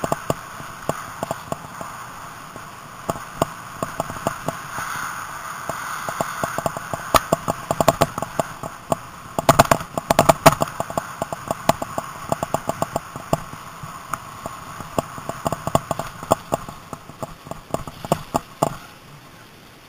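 Mountain bike riding over a rough, muddy trail: a steady rush of tyres and air with frequent sharp rattles and knocks from the bike and on-board camera jolting over bumps, thickest about halfway through.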